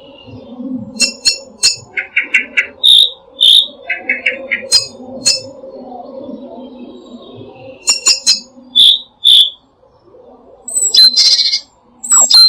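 Songbirds singing and calling close by: sharp high chips, short trills and clear whistled notes, with a longer, louder phrase near the end, over a low background murmur.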